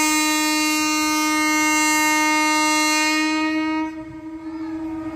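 Indian Railways locomotive horn sounding one long, steady note, loud for almost four seconds, then falling to a softer held tone.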